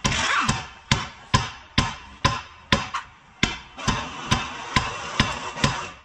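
Hammer blows on the steel front suspension of a car, a sharp ringing knock about twice a second, steady throughout, in the course of a control arm replacement.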